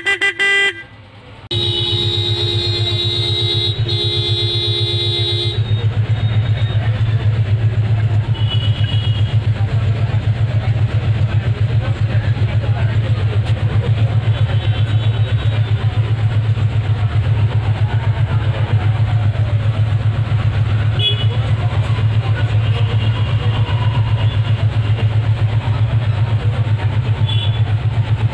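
An electric vehicle horn sounds in short blasts, then once held for about four seconds. Under it an engine runs steadily at idle with a low hum; the engine goes on alone after the horn stops.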